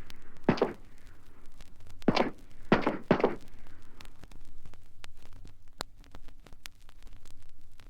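Four heavy thuds in a sound-effect recording, the last three in quick succession, followed by scattered light clicks and taps.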